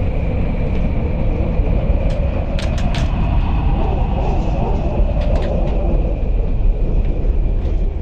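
Steady low rumble of vehicle noise, with a faint steady high whine over it and a few sharp clicks about two to three seconds in.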